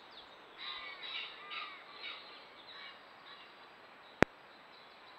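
A bird calling off camera: a run of about six short calls, roughly two a second, over a quiet outdoor background. A single sharp click a little after four seconds in.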